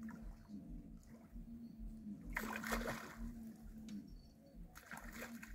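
Water splashing in two bursts, about two seconds in and again near the end, as a hooked fish is brought in at the bank for the landing net.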